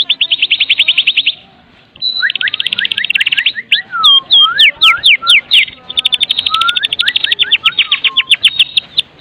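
White-rumped shama (murai batu) singing its 'kretekan' rattle: a fast chatter of about a dozen sharp notes a second, broken by a short pause about a second and a half in. Between the rattles come loud, sharp downslurred whistles and chips.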